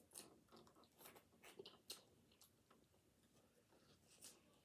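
Faint close-up mouth sounds of someone chewing snow crab meat: soft wet smacks and clicks, several in the first two seconds and only a few after that.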